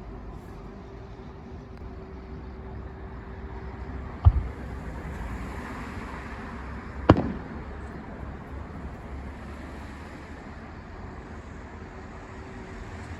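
Two aerial firework shells bursting with sharp booms about three seconds apart, the second the louder, over a steady background hum.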